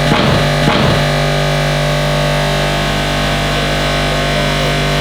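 Background music: a full electronic or guitar chord struck near the start, then held as one long sustained chord.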